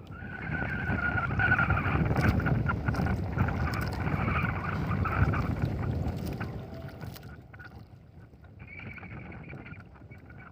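Wind buffeting the microphone and water washing against a small fishing boat's hull, strong at first and easing off about seven seconds in.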